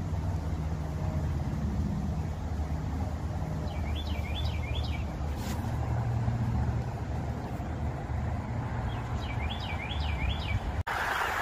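Low, steady rumble of a mountain bike's knobby tyres rolling on pavement while riding. A bird sings twice, each time a quick run of three or four chirps. Near the end the sound drops out for an instant and then turns into a brighter hiss.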